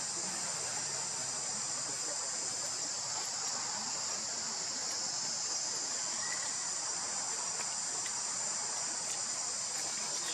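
Steady chorus of insects, a continuous high-pitched buzz that holds level throughout, over a soft even hiss.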